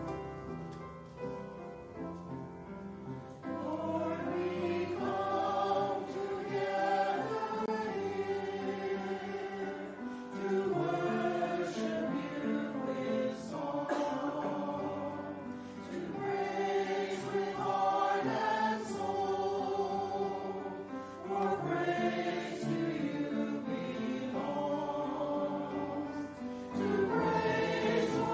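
A choir singing a sacred piece with instrumental accompaniment, the voices coming in about three seconds in after a short instrumental passage.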